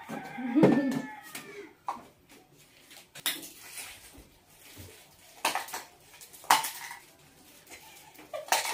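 Drinking glasses and dishes clinking and being set down on a table: a handful of separate sharp clinks spread over several seconds.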